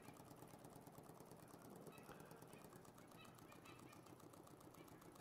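Small homemade double-acting oscillating (wobbler) engine running slowly, giving a faint, quick, even ticking.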